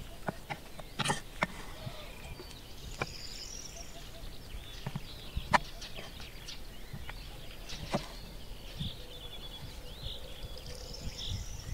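Knife cutting vegetables on a wooden cutting board, the blade knocking against the board a few times at irregular intervals. Birds chirp faintly in the background.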